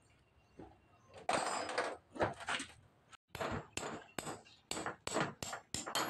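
Hammer striking metal in a quick run of sharp taps, about four a second, through the second half. A louder metallic clatter comes a little over a second in.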